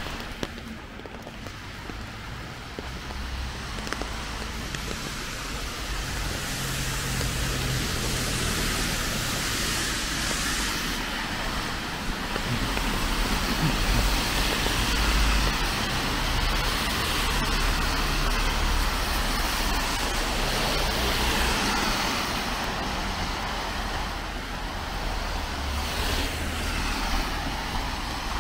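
Road traffic on a rain-wet street: tyre hiss and engine rumble from passing cars, growing louder over the first dozen seconds and then holding steady.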